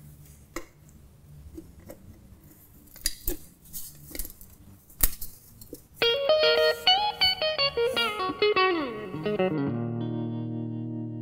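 Background music: a quiet opening with a few scattered soft knocks, then about six seconds in a loud melodic run of notes that slides downward and settles into a held, ringing chord.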